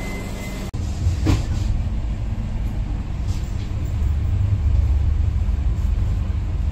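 Steady low rumble of a moving passenger train heard from inside the coach, with a short sharper sound about a second in.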